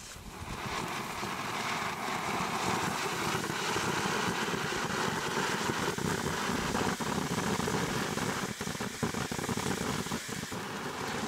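Röder 'Mythos' ground firework fountain burning: a steady spraying hiss that builds up about a second in after ignition, with a few sharp crackles in the second half.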